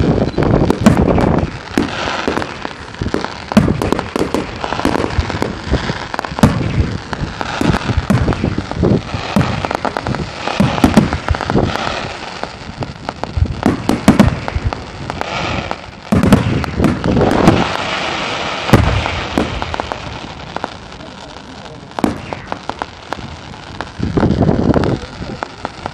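Fireworks display: aerial shells going off in a continuous run of deep bangs and dense crackling, with heavier salvos every few seconds. It eases off somewhat about twenty seconds in, then one more heavy burst comes near the end.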